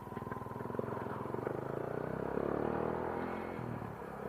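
Motorcycle engine running on the move, its pitch rising and falling as it is ridden, picked up by an action-camera microphone mounted inside the rider's helmet.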